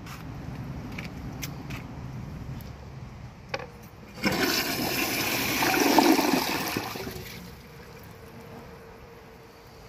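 Kohler Elliston Revolution 360 toilet flushing with its swirl flush: a short click, then a rush of water that starts about four seconds in, swells, and drains away over some three seconds.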